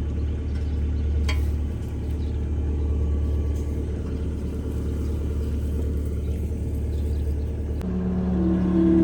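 An engine runs steadily with a low rumble, with no clear strikes or revving. About eight seconds in, sustained musical tones come in over it.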